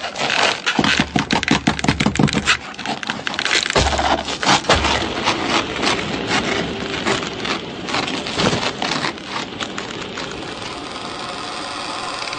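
Dense crackling and scraping, like wood creaking and splintering under strain. Near the end the crackle thins into a steadier sound with a faint musical tone.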